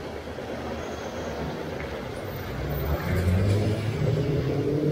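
A passing motor vehicle's engine on a wet street, growing louder about halfway through and rising in pitch near the end as it accelerates, over a steady hiss of rain.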